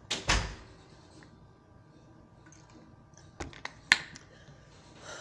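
A short, loud noise as a drink is taken from a plastic bottle. It is followed by quiet, then a few sharp clicks about three and a half seconds in, the loudest just before four seconds, as the bottle is handled and set down.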